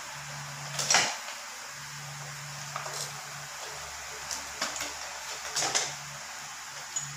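Twisted plastic rope being handled and pulled while it is knotted by hand: a few short rustling scrapes and knocks, the loudest about a second in and another cluster in the second half.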